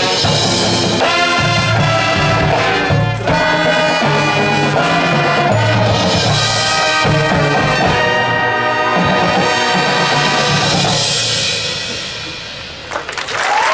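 Marching band brass and drums playing loud chords, then a final held chord that fades out about two seconds before the end. Crowd applause starts just as it stops.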